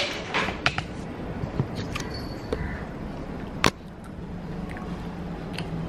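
Handheld camera being carried while walking: handling rustles and light clicks, with one sharp knock about two-thirds of the way through, over a steady low hum.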